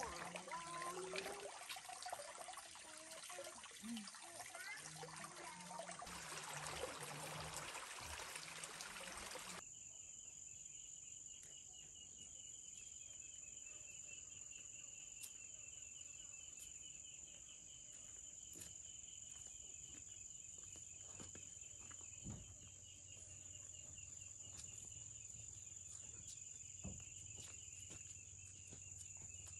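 Water trickling and splashing for about the first ten seconds, then cutting off suddenly. After that, insects chirr steadily: a constant high whine over a faster pulsing trill, with a few faint clicks.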